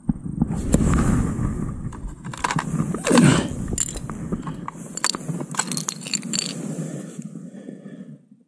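Irregular scraping and crunching with scattered sharp clicks, from hands and clothing moving on snowy ice beside a pike tip-up, loudest about three seconds in.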